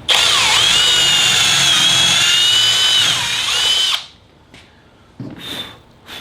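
Power drill boring a pocket hole into timber with a Kreg pocket-hole drill bit: a loud, steady high whine whose pitch sags briefly as the bit bites and again before it stops about four seconds in. A short burst of noise follows about a second later.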